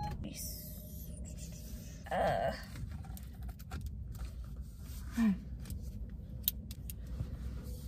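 A rhinestone steering wheel cover being worked onto a car's steering wheel: rubbing and scraping of the cover against the wheel, with a brief louder scuffle about two seconds in and a few sharp clicks near the end, over a low steady hum.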